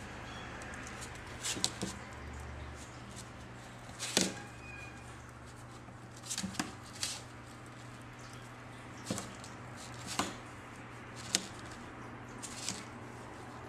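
A kitten playing with a feather wand toy: irregular sharp taps and scrabbles of its paws as it pounces, some in quick clusters, every second or two, over a steady low hum.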